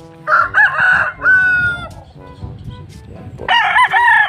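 Gamefowl roosters crowing: one full crow about half a second in, ending in a long drawn-out note, and another crow starting near the end.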